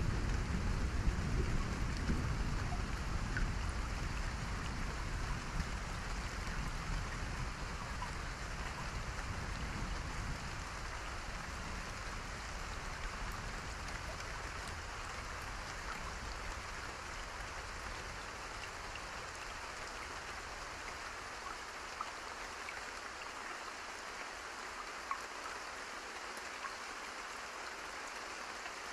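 Steady rainfall: an even hiss of rain with scattered individual drop ticks. A low rumble under the rain fades away over the first twenty seconds or so.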